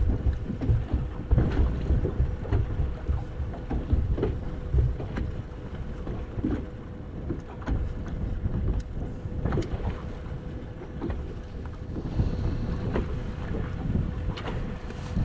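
Wind buffeting the microphone, with water lapping and knocking against a boat hull and a faint steady hum underneath.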